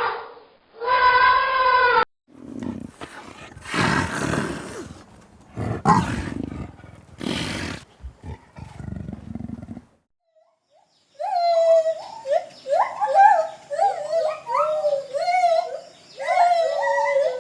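Farm animal calls: a falling pitched call, then a string of rough, noisy calls, and after a brief pause a fast series of short calls that rise and fall in pitch.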